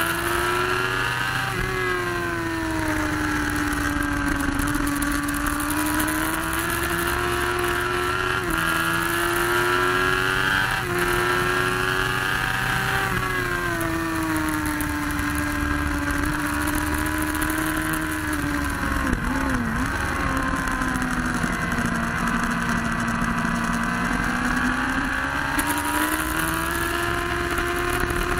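Sport motorcycle engine at high revs heard from an onboard camera, with constant wind rush. The pitch climbs and drops sharply at upshifts about 8 and 11 seconds in, sinks slowly as the throttle is eased for a long stretch, then climbs again near the end.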